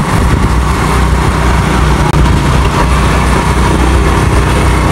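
A motor vehicle driving along a road: a steady, loud low engine drone with road and wind noise, heard from on board the moving vehicle.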